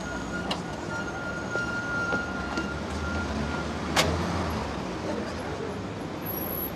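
Street traffic and van engines running, with a faint steady high whine through the first half and a sharp knock about four seconds in.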